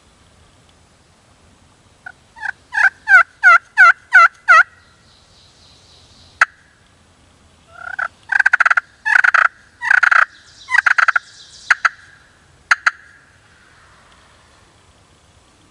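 A wild turkey gobbling: a loud rattling gobble about eight seconds in. Before it comes a run of about eight evenly spaced hen-style yelps, and a few short, sharp single notes are scattered around it.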